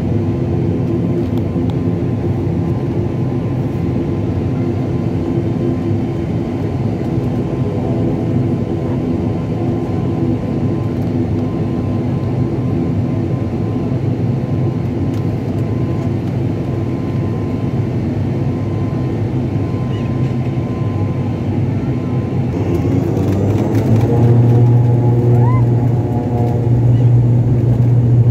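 Turboprop engines of an ATR 42-600 heard from inside the cabin, running steadily with a propeller hum. About 23 seconds in the sound grows louder and a deep steady tone comes in as the engines are brought up to takeoff power.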